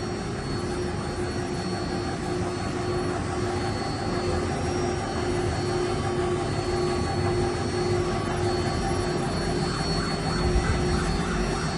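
CNC metal engraving machine running, its spindle giving a steady whine over a continuous hiss.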